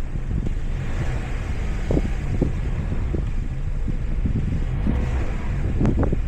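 A car driving on a snowy road: a steady low rumble of engine and tyre noise, with a few light knocks.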